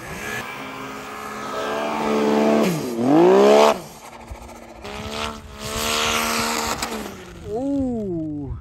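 Snowmobile engine revving hard while ploughing through deep powder, its pitch rising and falling with the throttle. The loudest part is a sharp rise in revs about three seconds in.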